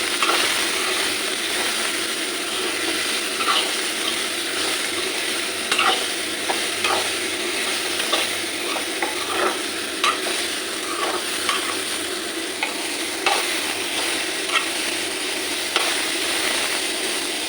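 Okra, onion and tomato frying in oil in a kadai with a steady sizzle, while a spatula stirs and scrapes the pan, giving scattered clicks throughout.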